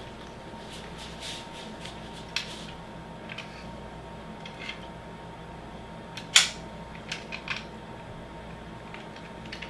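Light clicks and taps of a small diecast metal toy car being handled, with one sharper click about six seconds in, over a faint steady hum.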